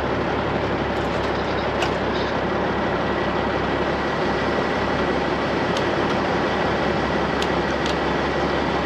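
Heavy diesel equipment running steadily under load while a heavy-duty wrecker winches in a rolled-over dump truck, with a faint steady high whine and a few faint clicks.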